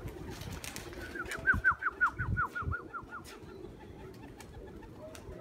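A bird calling a quick run of about a dozen short high notes, each falling in pitch, about five a second for two seconds, with a few dull low thumps among them.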